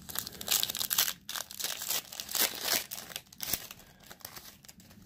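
Foil wrapper of a Panini Threads basketball card pack crinkling as it is handled and torn open, a run of irregular crackles that thins out toward the end.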